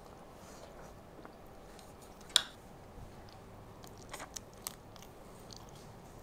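A person eating crab: chewing, and the shell cracking and being picked apart by hand. There is a sharp click about two seconds in and a few small crackles near the end.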